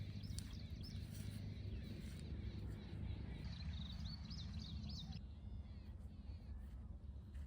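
Small birds chirping in quick series of short, hooked notes, once at the very start and again from about three and a half to five seconds in, over a steady low rumble of outdoor background noise.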